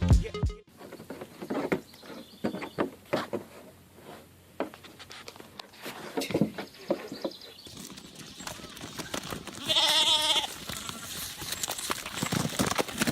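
Scattered short knocks and scuffs, then about ten seconds in a single wavering bleat from a farm animal.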